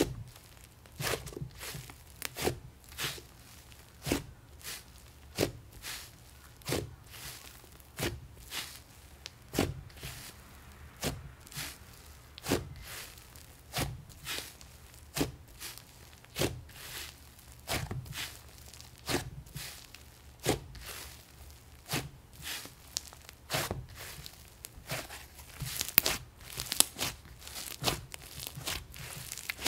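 Thick, dough-like slime being kneaded, folded and pressed by hand, giving short crackly squishes over and over, about once or twice a second.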